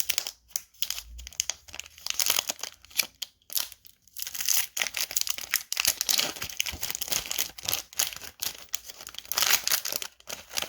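Foil Pokémon booster pack wrapper crinkling and tearing as it is opened by hand, a dense run of sharp crackles with a short lull about four seconds in.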